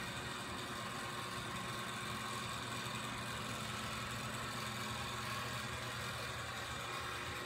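Steady mechanical hum with a few constant tones over an even hiss, unchanging throughout.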